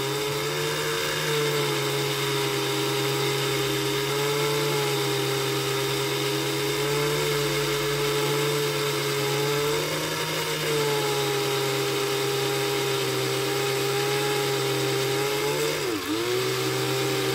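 Cordless drill running steadily, spinning a diecast toy car axle that is held in sandpaper; the motor's pitch dips briefly twice.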